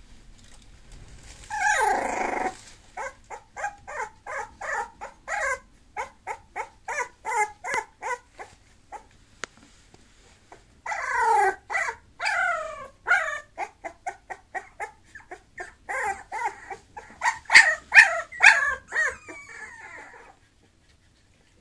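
Bulloxer (bulldog–boxer mix) puppy whimpering in a long run of short, high yips, a few a second. There is a louder cry about two seconds in and a cluster of drawn-out falling whines about eleven seconds in.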